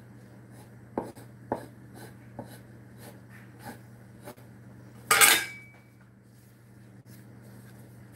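Light taps and scrapes of a knife on a wooden cutting board as slits are cut into a raw pie crust, then a metal utensil set down with a short clatter and brief ring about five seconds in.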